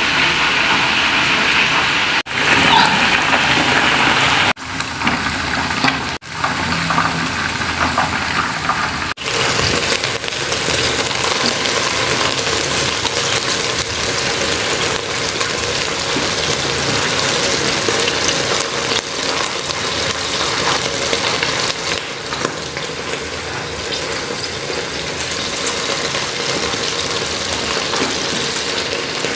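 Hot cooking oil sizzling and spattering in a pot, a dense steady hiss. It breaks off abruptly several times in the first ten seconds, then runs on evenly.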